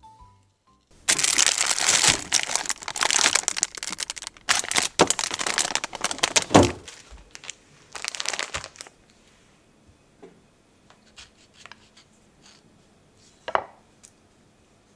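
Plastic wrapper of a packaged bread loaf crinkling and tearing as it is handled and opened, for about eight seconds. After that, a few faint taps and one sharper knock near the end.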